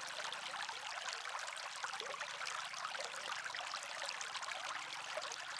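Quiet, steady trickle of running water, dense and crackly, with a few small gurgles.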